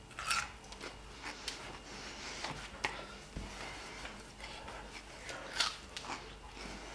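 Quiet room tone with a few scattered faint clicks and rustles, the loudest a little over halfway through.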